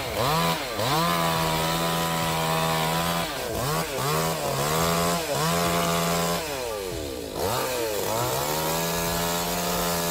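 Two-stroke chainsaw running at high revs, its pitch dropping and climbing back again several times. The longest dip comes about seven seconds in, before it revs back up and runs steadily.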